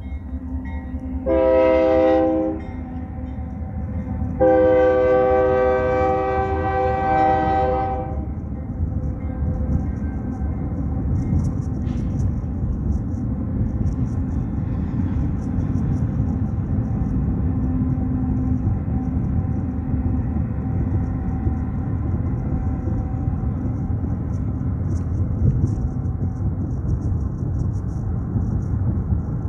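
Nathan K3LA five-chime air horn on a Union Pacific AC44C6M diesel locomotive sounding one short blast, then a long blast of about three and a half seconds. After that comes the steady low rumble of the locomotives and grain cars rolling past.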